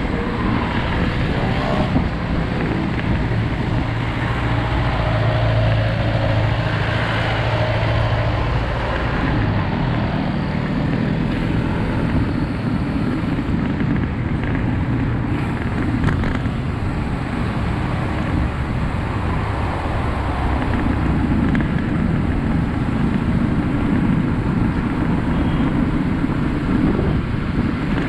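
Road traffic heard from a moving action camera: a steady rush of wind on the microphone over the hum of engines from jeepneys, motorcycles and cars. One vehicle's low engine hum stands out for several seconds, then fades.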